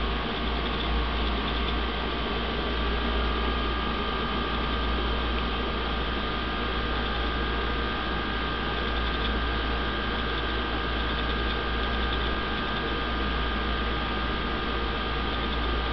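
Steady hum and hiss of a small aquarium's running equipment (filter and water pump), with a deep low hum and two faint steady high whines.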